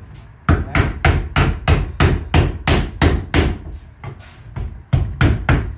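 Rubber mallet striking lead flashing to bend it over a clamped straight edge, in quick even blows about four a second. The blows pause for about a second past the middle, then start again.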